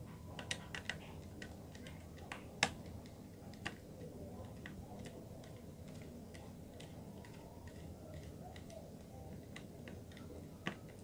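Scattered light clicks and ticks of wire and a plastic magnetic contactor being handled as a wire end is worked into its terminal, the sharpest click a little over two seconds in.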